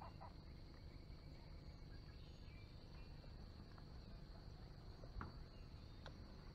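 Faint, steady, high-pitched chorus of insects in the swamp. A few light clicks and knocks come from tackle handling and steps on the boat deck, the loudest about five seconds in.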